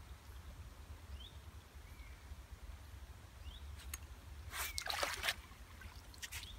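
Water splashing and sloshing as a hooked carp thrashes in a landing net, in a burst about four and a half seconds in. A few faint bird chirps and a low steady rumble underneath.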